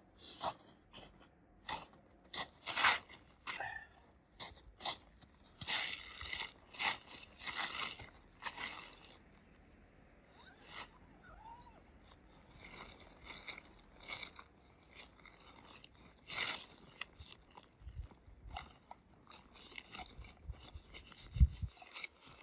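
Irregular crunching and rustling of tent fabric, a backpack and packed snow as gear is handled and pushed into a tent, busiest in the first nine seconds, then sparser, with a few dull low thumps near the end.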